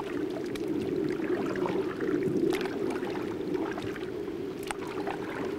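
Water swishing and gurgling along a wooden dugout canoe as it is paddled across a pond, with a few light knocks.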